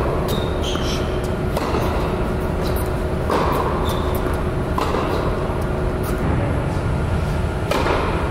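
Tennis balls struck by rackets and bouncing on an indoor hard court: sharp pops at irregular intervals, roughly one a second, over a steady low rumble.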